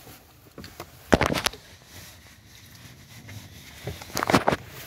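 A few short knocks and clunks in two clusters, about a second in and again near the end, against a quiet background.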